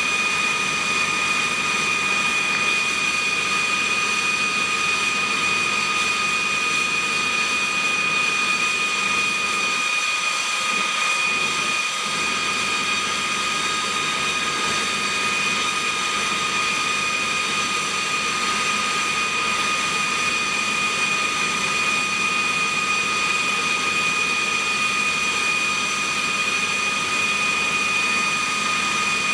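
Aero L-39 Albatros jet trainer's AI-25TL turbofan engine idling steadily, its jet noise topped by a high-pitched whine.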